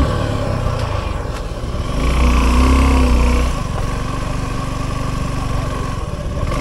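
Motorcycle engine running under throttle, revved harder for about a second and a half starting two seconds in, then easing back to a steadier run.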